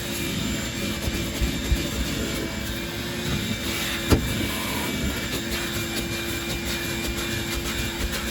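A small motor running steadily with a rushing of air and a steady hum. There is one sharp knock about four seconds in.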